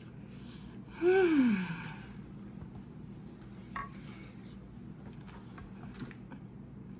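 A long, breathy sigh of satisfaction while eating, about a second in, its pitch falling over most of a second. A few faint clicks follow.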